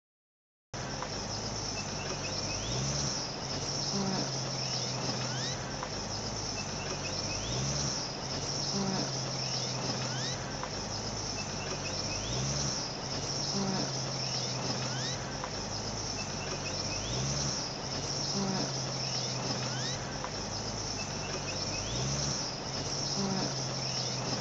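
A cricket-like high chirring over a low tone pattern that steps in pitch, the whole thing repeating about every five seconds like a looped soundtrack bed. It starts abruptly just under a second in.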